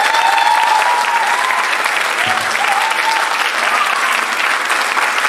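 Audience applauding steadily after a spoken-word reading, with a high drawn-out cheer over the clapping in the first three seconds.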